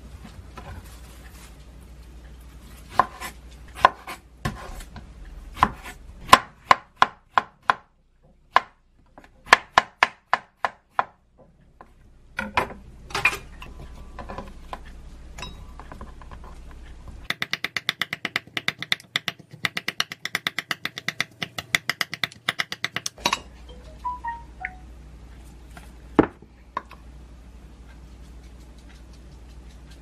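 Knife cutting strawberries on a wooden cutting board. Single cuts come one by one at first, then a fast, even run of chopping at about nine strokes a second lasts about six seconds, and a few last knocks follow.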